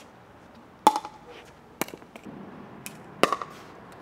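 Pickleball paddles striking a plastic pickleball on serves: a sharp pop with a brief ring about a second in and another near the end, with lighter clicks of the ball in between.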